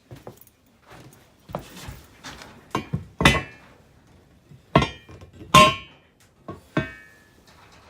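Steel engine-stand parts being rummaged through and knocked together: soft knocks, then four sharp metal clanks that each ring briefly, the loudest about three and five and a half seconds in.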